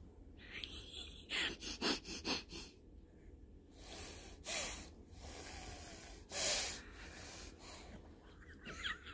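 A baby's short breathy snorts and huffs. There are several quick ones about two seconds in, another near four and a half seconds, and the loudest about six and a half seconds in.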